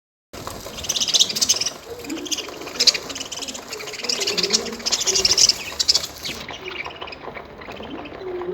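Pet birds calling as they feed: low, bending coos mixed with many short, high chirps. The calls start about a third of a second in, and the chirping thins out after about six seconds.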